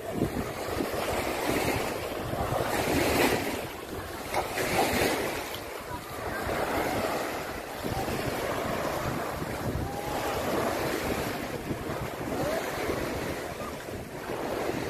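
Small waves breaking and washing up on a sand beach, swelling and ebbing every second or two, with wind buffeting the microphone.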